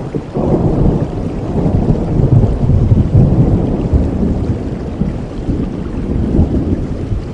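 Steady rain with a long roll of thunder that swells about half a second in, peaks in the middle and slowly fades.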